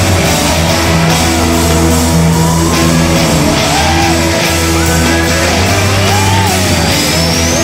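Rock music with distorted guitar and a bending lead melody over a steady bass line.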